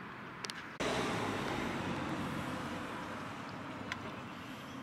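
Steady rushing road-traffic noise that cuts in abruptly about a second in and slowly fades, with a faint click near the end.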